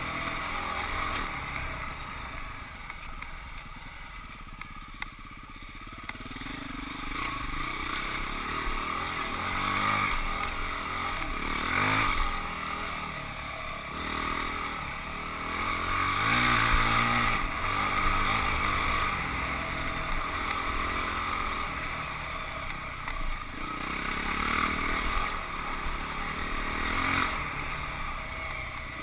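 Husqvarna 449 dirt bike's single-cylinder four-stroke engine revving up and falling back again and again as it is ridden along trail.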